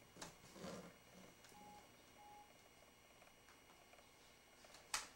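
Near silence: faint room tone with two short, faint beeps a second or two in and one sharp click near the end.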